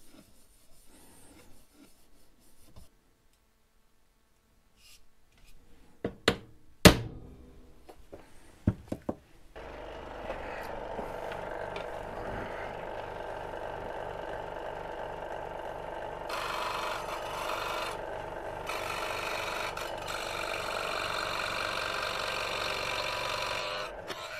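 A few sharp knocks of handling, then a Scheppach SD1600 scroll saw starts about ten seconds in and runs steadily with a regular rhythmic pulse, its reciprocating blade cutting a gear blank out of 3 mm aluminium sheet. The cutting sound turns harsher and brighter for stretches in the second half.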